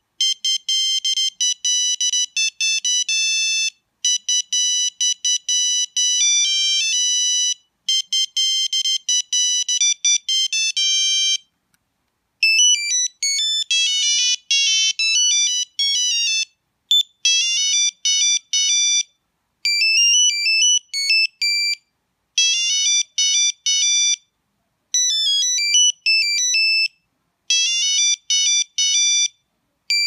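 Nokia 6340i mobile phone playing its default ringtones, high-pitched electronic beeping melodies. One fast tune plays through three times, then after a short gap about twelve seconds in, a different tune starts and repeats in shorter phrases.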